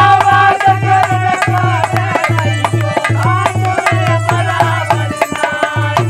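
Male voices singing a folk devotional bhajan in long, drawn-out lines, accompanied by a dholak playing a steady beat of deep bass strokes and sharp slaps. The bass strokes drop out briefly near the end.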